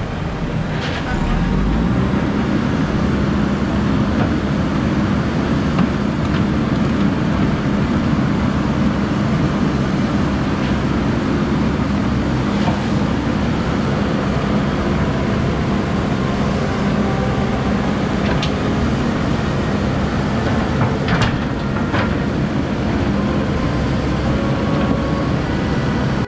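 Diesel engine of a backhoe loader running steadily over the constant rush of muddy floodwater and rain, with a few short knocks.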